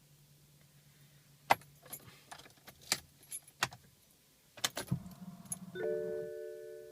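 Keys jangling and clicking in a string of sharp rattles over a faint steady low hum. Near the end, a steady electronic tone of several pitches sets in and holds.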